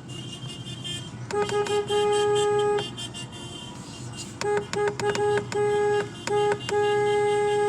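Car horn honked in a pattern of short taps and long blasts: a couple of quick beeps and a long blast about a second in, then after a pause a run of quick taps and a second long blast near the end. A low steady hum from the car runs underneath.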